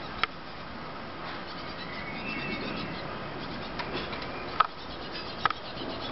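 A few short, sharp chip-like calls from a hungry great tit fledgling begging, with a faint, higher gliding phrase about two seconds in, over a steady background hiss.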